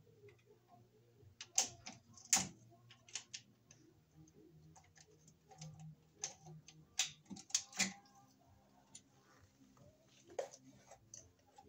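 Scattered light clicks and small metallic knocks from hands and a screwdriver working on wires and a circuit breaker in a steel breaker panel, a few of them louder, over a faint low hum.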